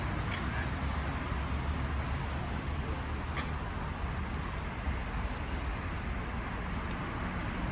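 Steady low rumble of motor vehicle engines, with a few faint clicks.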